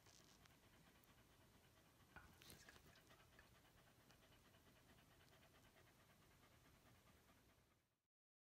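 Pembroke Welsh Corgi panting faintly and steadily with her mouth open, typical of a bitch in labour while whelping; the sound cuts off abruptly near the end.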